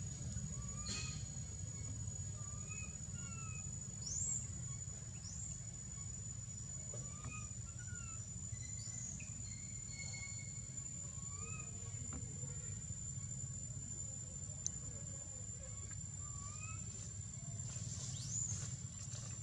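Faint, high squeaky calls of an infant long-tailed macaque, short rising-and-falling squeals repeated every second or two, with a cluster near the end. Under them run a steady thin high insect whine, small chirps and a low rumble.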